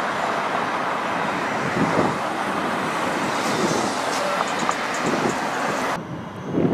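Road traffic: cars driving past close by on a city avenue, a steady rush of tyre and engine noise with wind on the microphone. Near the end the sound changes suddenly, losing its hiss.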